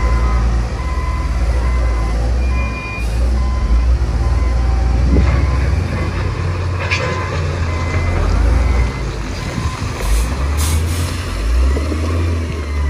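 Heavy diesel engines of a dump truck and bulldozer running with a low rumble. A reversing alarm beeps about once a second through the first few seconds. Two short hisses come about ten seconds in.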